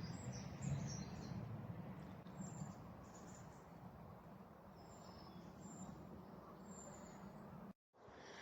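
Small birds chirping, short high-pitched calls scattered throughout, over a low rumble that eases after about three seconds. The sound cuts out for a moment near the end.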